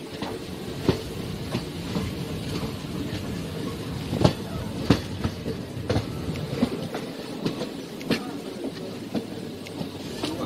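Express passenger train running, heard from on board: a steady rumble of the coach on the track with sharp wheel clacks over rail joints at uneven intervals, about one a second, the loudest a little before halfway.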